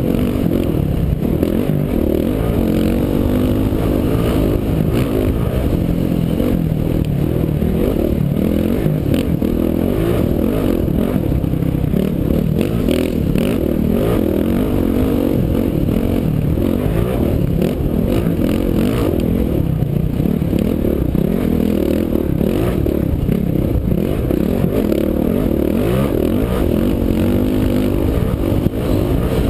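Dirt bike engine running hard on the move, its pitch rising and falling as the throttle opens and closes over sandy, rough desert track, heard close up from on board the bike, with occasional knocks and rattles from the ride.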